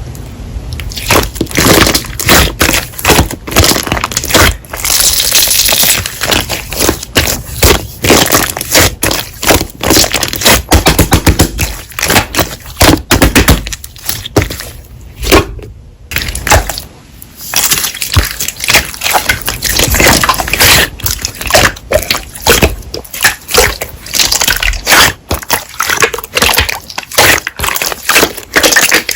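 Slime being pressed and kneaded by hand, making a dense, uneven run of crackling pops and clicks, with a brief lull about halfway through.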